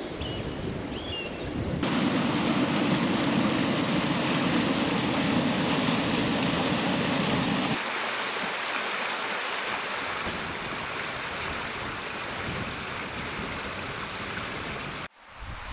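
Running water of a shallow stream rushing over stones and under the stone slabs of a clapper bridge: a steady, even rush. A few bird chirps come at the very start, and the rush changes abruptly twice, heavier and deeper at first and lighter and higher later.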